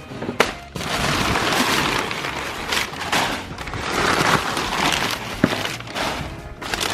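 Packaging crinkling and rustling as a car part is unwrapped from its box, with a couple of sharp clicks.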